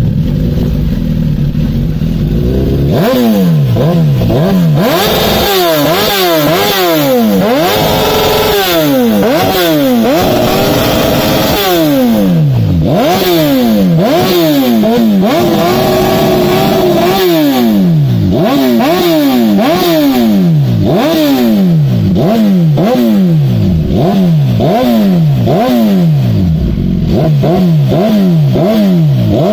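Suzuki GSX-R1000's inline-four engine with a Racefit aftermarket exhaust, pretty loud, revved with the bike standing still. It idles steadily for a few seconds, then is blipped again and again, each rev climbing sharply and dropping back about once a second, with a couple of longer held revs.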